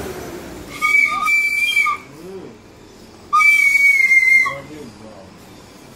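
A child blowing a toy whistle: two steady, shrill blasts of about a second each, one about a second in and one about three and a half seconds in.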